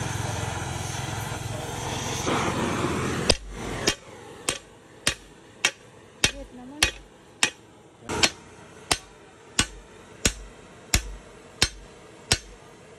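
A heating flame hisses steadily, then after about three seconds a hammer starts forging a red-hot steel bar on an anvil: about fifteen sharp blows in an even rhythm, roughly three every two seconds.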